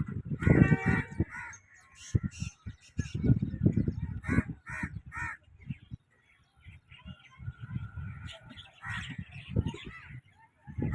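Crows cawing: short harsh calls, a quick run of three about four seconds in and more near the start and end, over an irregular low rumble.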